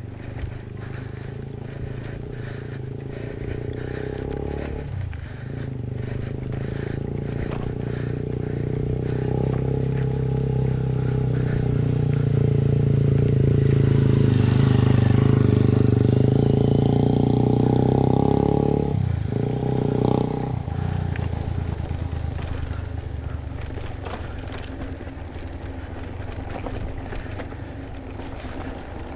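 A motor vehicle's engine running steadily. It grows louder towards the middle, dips briefly in pitch about two-thirds of the way through, then carries on quieter.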